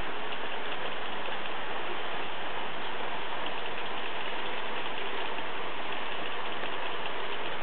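H0-scale model trains running on a Märklin layout: a steady whirring rumble of small electric motors and metal wheels on the rails, with faint ticking.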